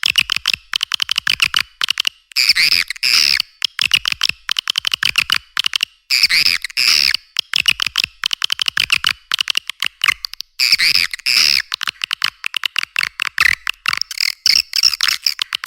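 Swiftlet lure call track: rapid clicking, twittering swiftlet chirps, with a louder buzzy twittering phrase coming back about every four seconds. It is the kind of recorded call played in swiftlet houses to draw the birds in to nest.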